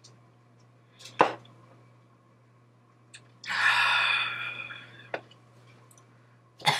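A woman drinking from a can: a short sharp sound about a second in, then a long breathy exhale about three and a half seconds in that lasts over a second and fades away.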